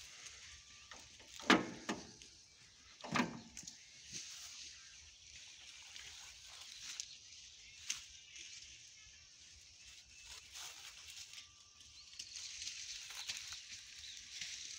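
Quiet outdoor background with a steady high hiss and no engine running, broken by two sharp knocks about one and a half and three seconds in, and a few fainter ticks after.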